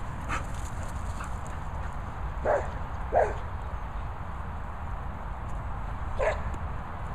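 A dog barking a few short times: two barks close together a few seconds in, the second the loudest, and another near the end, over a steady low rumble.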